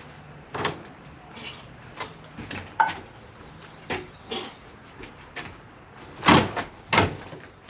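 Irregular knocks and bangs of wood being worked loose during demolition of a screened porch, about ten in all, the two loudest near the end.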